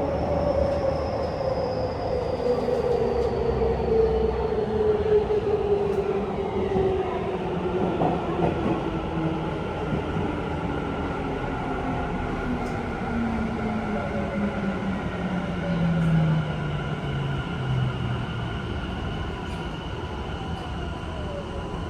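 Tokyu 5050 series electric train heard from inside the car: the whine of its traction motors and inverter falls steadily in pitch as the train slows, over the continuous rumble of the wheels on the rails.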